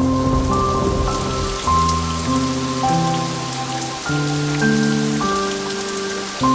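Steady rain falling with a patter of drops, mixed with slow, soft instrumental music of held notes that change about once a second.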